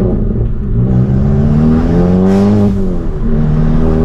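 Tuned VW Golf GTI turbocharged 2.0-litre four-cylinder with an aftermarket exhaust accelerating hard. The engine note climbs in pitch, drops sharply at a gear change about two and a half seconds in, then starts climbing again.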